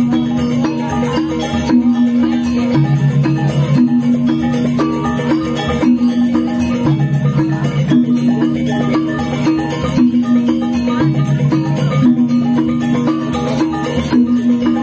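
Balinese baleganjur gamelan playing: pitched bronze gongs repeat a low alternating figure about every four seconds over fast, dense percussion.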